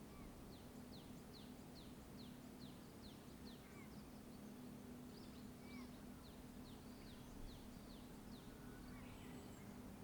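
Faint bird song: two runs of quick, high, falling notes, about three a second, the first in the opening few seconds and the second starting about five seconds in. Under it runs a steady low hum of distant traffic.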